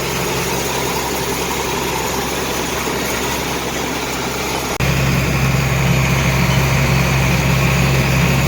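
Farm tractor engine running steadily under load while pulling a hay rake. About halfway through it suddenly steps up louder and heavier, then holds steady again.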